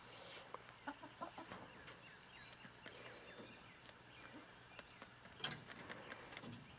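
Laying hens clucking faintly, with a few scattered short clucks.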